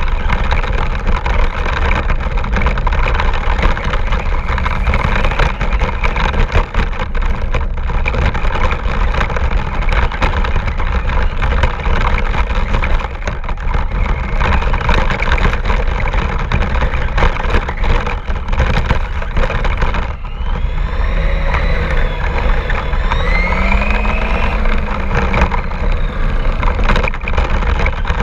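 Radio-controlled car running with a GoPro mounted on it: a loud, continuous rattling rush from the chassis and wheels. About two-thirds of the way through, the motor's pitched whine rises and falls a few times.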